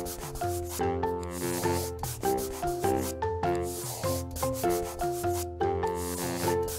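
Scratchy rubbing strokes of coloring-in, repeated in quick passes, over background music with a simple melody.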